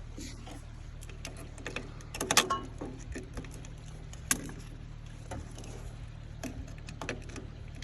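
Booster-cable clamps and metal tools being handled at the backhoe's battery: scattered clicks and clanks, with a louder rattle about two and a half seconds in and a sharp click a little past four seconds. A steady low hum runs underneath. No engine runs or cranks, because the battery is too dead even to click the starter.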